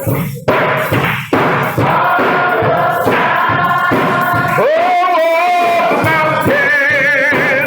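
Choir singing a gospel song with musical accompaniment, the voices held on long notes with vibrato.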